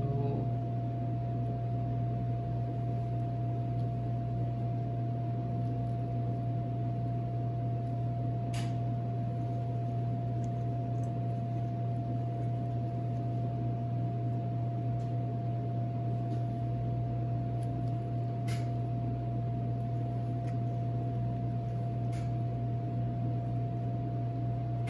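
Steady low machine hum of commercial kitchen equipment, with a constant faint whine above it; three faint clicks are spread through it.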